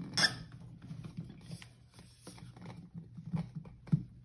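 Stiff MG Red kart tire's rubber bead rubbing and scuffing against a magnesium kart rim as the rim is forced into it by hand, the bead wet with soapy water. There are irregular light scuffs and knocks, the loudest a rubbing noise about a quarter second in.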